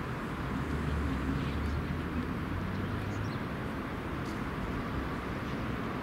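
Outdoor city construction-site background noise: a steady low rumble of distant engines and traffic, swelling for a couple of seconds, over an even hiss.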